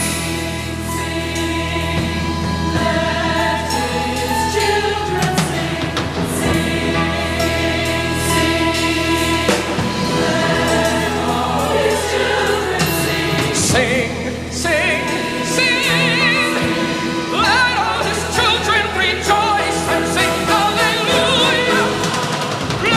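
Music: a choir singing a sacred song with instrumental accompaniment, over sustained low bass notes.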